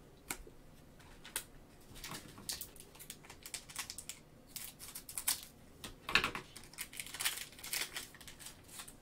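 A plastic cellophane trading-card pack is torn open and handled in gloved hands. It gives a string of irregular crinkles, crackles and short rips, sparse at first and busier from about two seconds in.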